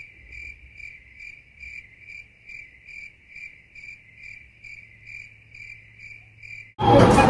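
Cricket chirping sound effect, the comic 'crickets' gag for an awkward wait, cut in over the scene in place of the live sound. It is a steady run of even chirps a bit over twice a second, with a faint low hum beneath. It starts and stops abruptly.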